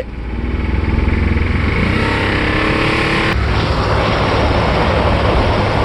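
Chevrolet 4.3 Vortec V6 revved hard, its pitch rising for a few seconds and then held at high revs as a harsh, dense racket. The engine has a bad bottom-end knock from a worn crankshaft journal.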